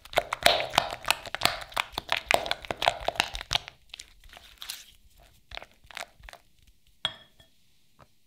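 Silicone spatula working thick cream cheese and sugar against a glass bowl: a quick run of sticky, crackly scrapes for the first three or four seconds, then a few scattered strokes. About seven seconds in there is one sharp tap with a short ring.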